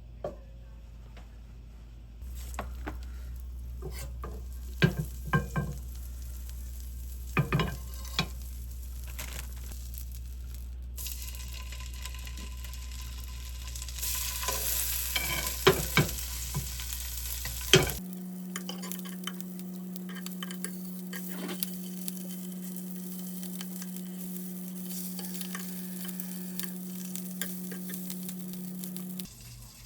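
Pollack roe (myeongnan) frying and sizzling in a pan, with utensils clicking and knocking against it, heard in several short cut-together clips. A steady low hum runs under the last third.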